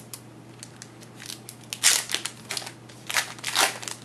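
A trading card pack wrapper crinkling and crackling in the hands as a pack is opened, with two louder bursts, about two seconds in and again just after three seconds.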